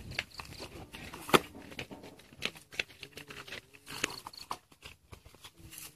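Scattered clicks, knocks and rustles of a portable water pump and its plastic hose being handled in dry grass, with one sharp knock about a second and a half in.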